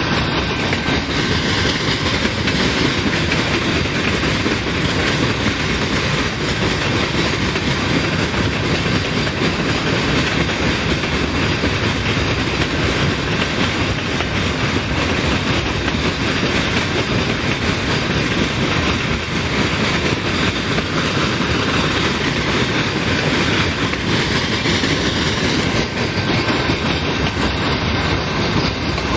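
Freight train of tank cars rolling past, a steady noise of steel wheels running on the rails.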